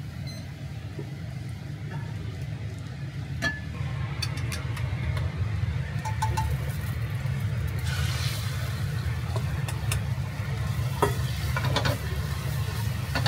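Steady low rumble of a commercial kitchen's exhaust duct and gas burner, with hot oil sizzling. About eight seconds in, the sizzle rises as beaten egg goes into the hot oiled frying pan, and chopsticks click against the steel pan.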